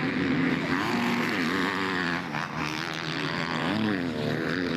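Several motocross bikes' engines racing at once, their pitch rising and falling over and over as the riders open and close the throttle.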